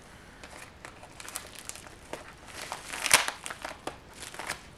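Plastic packaging crinkling and crackling as it is handled, in irregular bursts with the loudest crackle about three seconds in.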